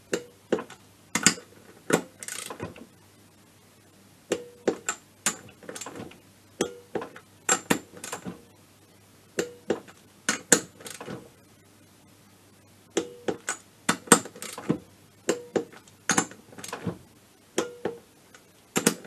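Torque wrench ratcheting on the cylinder head nuts of an MBK scooter's two-stroke engine, in short groups of sharp metallic clicks about every second with a couple of brief pauses. The nuts are being brought up to torque in several passes, the head turning down onto two bent studs until the wrench clicks off.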